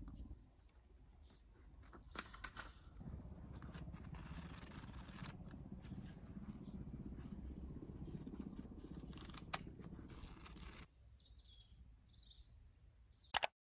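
Quiet yard ambience: a low steady rumble with a few soft clicks and rustles, and two or three short, high bird chirps about eleven seconds in.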